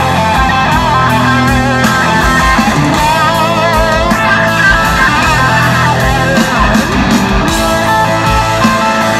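Live rock band playing an electric-guitar-led instrumental passage with no singing: the lead guitar bends and shakes its notes with wide vibrato over bass and drums. The sound comes loud from the concert PA.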